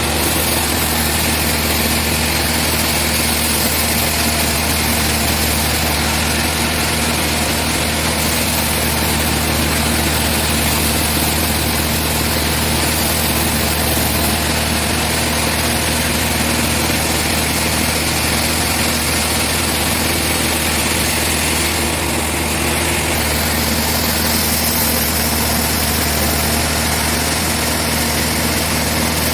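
Sawmill machinery running steadily: a constant engine hum under a dense, even hiss, with a slight change in the hiss about two-thirds of the way through.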